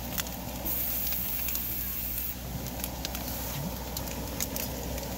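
Fried rice sizzling as it cooks, with scattered small crackles over a steady hiss.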